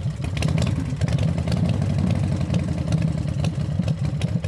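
An engine running steadily with a fast, even pulse.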